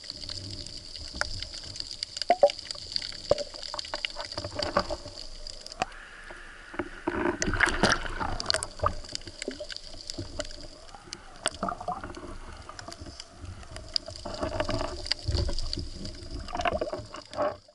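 Water sloshing and gurgling around an underwater action camera, with many small clicks and knocks. It grows louder with splashing from about six and a half seconds in, as the camera breaks the surface, and again near the end.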